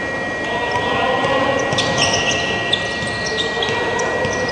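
Basketball game on an indoor court: sneakers squeaking in short chirps several times from about two seconds in, and a basketball bouncing, one sharp bounce near the middle. A steady high-pitched tone runs underneath.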